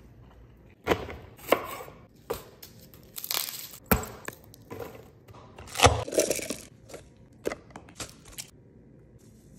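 Chef's knife chopping vegetables on a wooden cutting board: a run of uneven, sharp knocks and cutting crunches, a dozen or so spread over several seconds.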